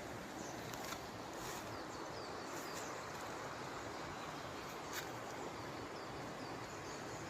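Steady rushing of water, with a few sharp ticks and faint bird chirps over it.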